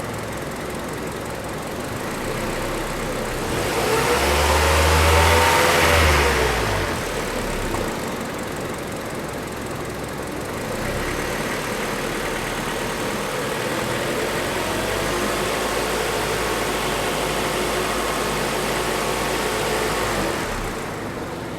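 Hyundai Sonata LPi engine idling with the air conditioning on, briefly revved about four seconds in and settling back. From about eleven seconds a steadier, louder running sets in as the high-side refrigerant pressure rises and the electric cooling fan is driven to high speed.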